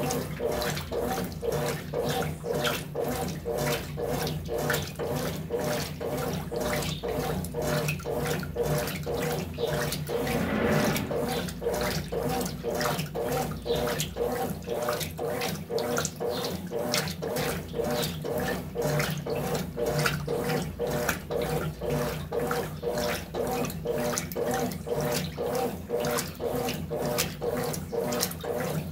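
Brastemp BWT12 12 kg top-loading washing machine agitating a wash load: water and clothes slosh in a quick, even churning rhythm over a steady motor hum.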